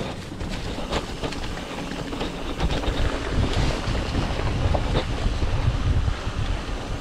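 Mountain bike riding over dry leaves and dirt singletrack, tyres crunching through the leaves with scattered clicks and rattles from the bike, under wind noise on the microphone. The low wind rumble grows louder about two and a half seconds in as the bike picks up speed.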